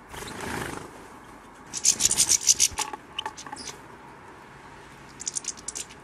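European goldfinches at a tube seed feeder: a brief flutter of wings as a bird flies in, then a burst of rapid, high scratchy clicking about two seconds in and a shorter one near the end, from the birds working at the feeder.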